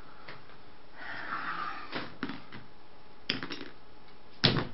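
Quiet room with a soft breathy sound about a second in and a few faint clicks, then a single sharp knock on the table near the end.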